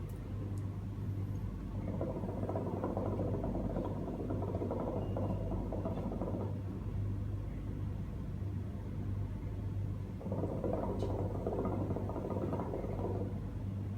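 Hookah water bubbling as smoke is drawn through the hose, in two long draws: one beginning about two seconds in and lasting some four seconds, the second starting around ten seconds in and lasting about three, over a steady low electrical hum.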